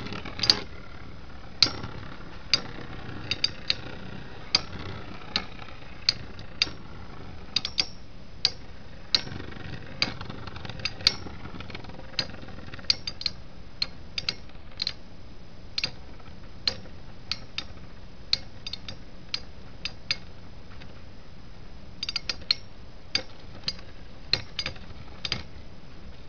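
Two Metal Fight Beyblade tops, Earth Eagle and Evil Befall, spinning against each other with a steady whir and sharp clacks as they collide, at irregular spacing, often one to three a second.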